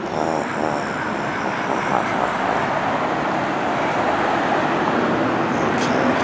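Road traffic: a motor vehicle passing on the street, a steady noise of engine and tyres that swells right at the start and holds.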